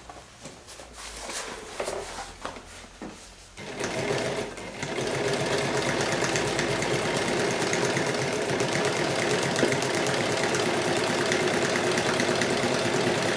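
Keller 51 sewing machine. A few light clicks as the work is set under the foot, then about four seconds in the machine starts and runs steadily, stitching through heavy synthetic fabric.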